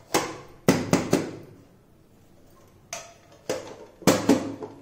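Upturned aluminium cake tin knocked and tapped against a plate to release the baked cake: a string of sharp metallic knocks in irregular groups, each ringing briefly.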